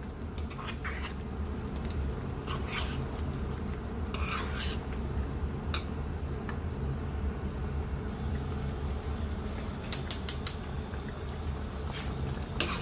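A white plastic spoon stirring a simmering chicken and potato curry in a nonstick pan, with scattered scrapes and taps against the pan and a quick run of taps about ten seconds in, over a steady low hum.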